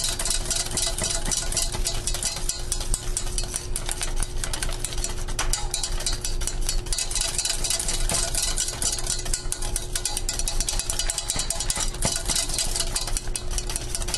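Wire whisk stirring a thick, thickening cream-soup base in a stainless steel saucepan: a steady run of rapid scraping and clicking as the wires sweep the bottom and sides of the pot to keep it from burning on the bottom. A low steady hum runs underneath.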